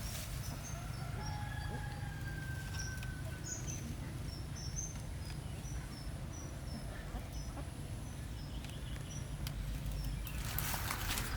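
Small birds chirping, with scattered short high chirps over a steady low rumble. A rush of hiss comes in near the end.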